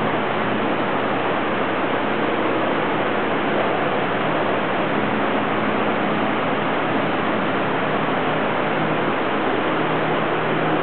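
A steady, even hiss with a faint low hum beneath it, unchanging throughout.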